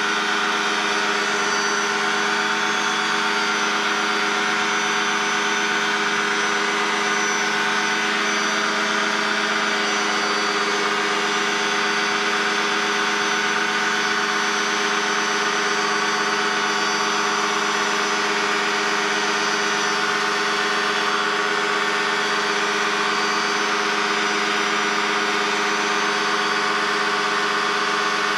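Challenger II ultralight's engine running steadily at climb power just after takeoff, an unbroken even drone heard in the cockpit.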